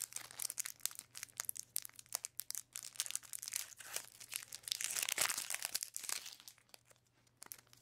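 Plastic foil booster-pack wrapper crinkling and tearing as the pack is ripped open and the stack of cards pulled out: a dense run of crackles that dies down about six and a half seconds in.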